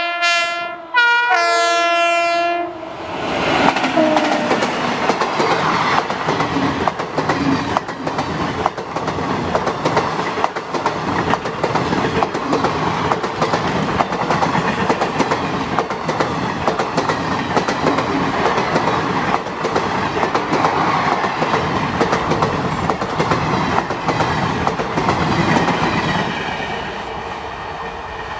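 WAP-7 electric locomotive's horn sounding two blasts, the first cut off about a second in and the second ending around two and a half seconds in. Then the coaches run close past with a loud, steady noise of wheels on the rails, which drops away near the end as the train moves off.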